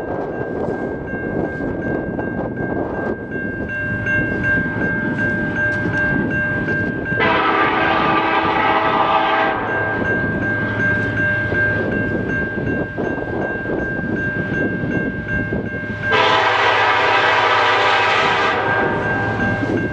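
Approaching freight locomotive, the EMD SD70M-2 CN 8010, sounding two long chord-horn blasts about nine seconds apart, the second slightly louder. Under them a level-crossing warning bell rings steadily.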